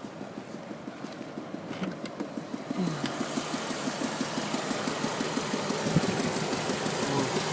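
BMW engine idling with a rapid, even knock, louder from about three seconds in. The owner cannot tell whether it is a mechanical knock or an exhaust leak at the manifold or pipe.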